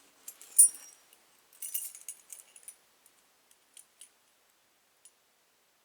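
Small metal keys clinking and jingling as they are handled: a sharp click about half a second in, a cluster of light jingles around two seconds in, then a few faint ticks.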